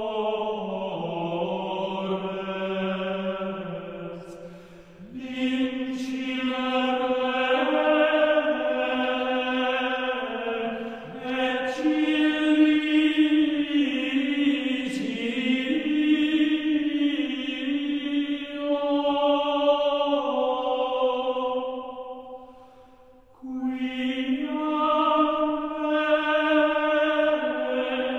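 Choir singing a Gregorian chant responsory in unison: long, slow phrases of held notes stepping up and down, with short breaks between phrases about four seconds in and again about three-quarters of the way through.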